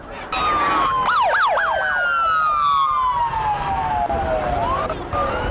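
Several police car sirens passing close by, starting loud a moment in. About a second in there are a few quick rising-and-falling yelps, then long wailing tones slide steadily lower in pitch as the cars go by, over the noise of traffic.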